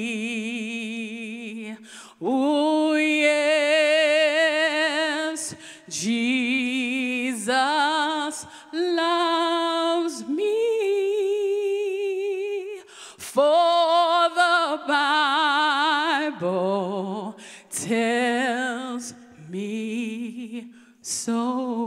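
A woman singing solo a cappella gospel into a microphone, in long held notes with wide vibrato and sliding runs, phrase after phrase with short breaths between.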